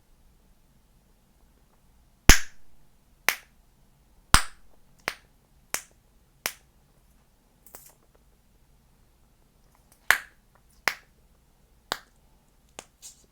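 Chewing gum being snapped in the mouth: about a dozen sharp, loud pops at an uneven pace, beginning about two seconds in, with short pauses of silence between them.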